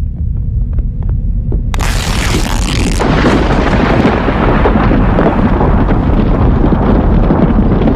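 Thunder sound effect: a low rumble, then a sharp crack about two seconds in that breaks into a long rolling rumble.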